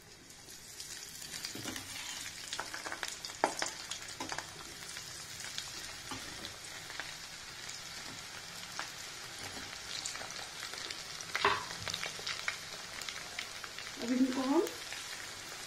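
Batter-coated potato wedges sizzling and crackling in hot oil in a steel kadhai as they are deep-fried a second time (double frying). The sizzle builds about a second in as the pieces go in, with a few sharp clicks along the way.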